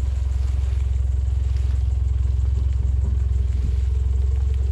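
Mitsubishi Triton ute's engine running at a low, steady idle as the vehicle creeps down a steep rutted gully held back on clutch and brake, heard as an even low rumble.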